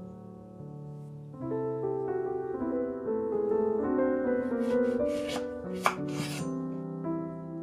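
Soft piano music, with a few short kitchen handling noises from food preparation clustered about five to six and a half seconds in, one of them a sharp knock.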